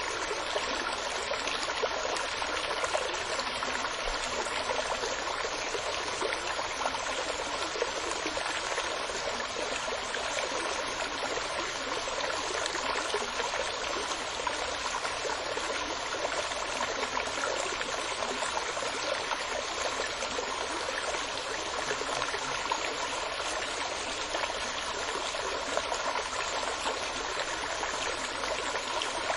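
Running water of a stream flowing over stones, a steady babbling and trickling that does not change.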